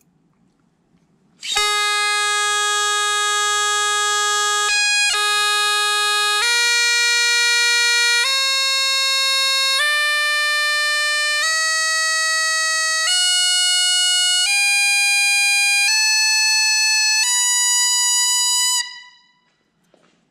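Great Highland bagpipe chanter of African blackwood (McCallum) with a G1 Platinum reed, mouth-blown, drones silent, played slowly up the scale from low G to high A, one held note about every second and a half, with a brief break on the low G. Loud: a sound level meter a couple of feet away reads over 100 dB.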